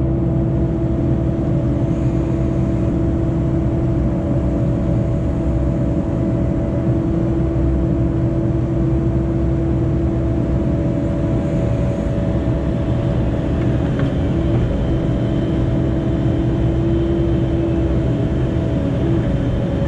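Diesel engine of an earthmoving machine running steadily, a constant whine held over its low rumble.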